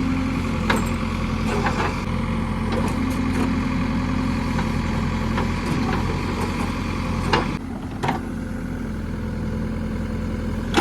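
Heavy diesel engine of a JCB 3DX backhoe loader running steadily, with several sharp metallic knocks and a brief dip in engine level about seven and a half seconds in.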